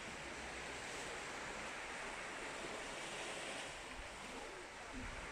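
Black Sea surf washing onto a pebble shore: a steady hiss of waves that swells and eases. Wind rumbles on the microphone near the end.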